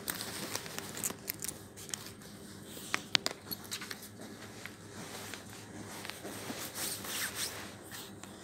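Pen scratching on paper and sheets rustling on a clipboard, with a few sharp clicks about three seconds in.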